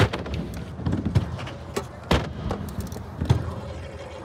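Stunt scooter wheels rumbling over skatepark concrete, with a hard clack as it lands at the very start and three more sharp knocks of deck and wheels striking the surface during the ride.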